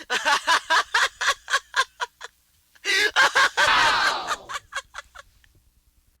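A radio-station sound effect played back from a 1990s cart tape: a rapid string of about ten short calls, about four a second, then after a short pause one long call that falls in pitch and fades out.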